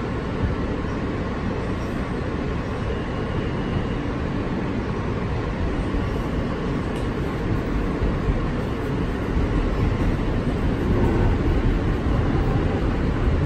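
Running noise inside an R160 subway car on the move: a steady rumble of wheels on the rails and running gear, growing somewhat louder over the last few seconds.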